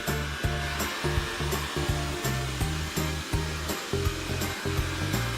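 Background music with a steady beat and a moving bass line, over the steady whir of a Xiaomi Mi Robot vacuum running.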